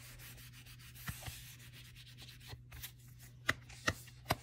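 A binder being handled and inspected: light rubbing and rustling against its cover, with a sharp click about a second in and three louder clicks close together near the end.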